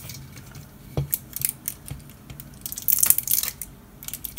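Packaging being peeled and torn off a metal can, crinkling and crackling, with a light knock about a second in and a louder burst of crackling near the end.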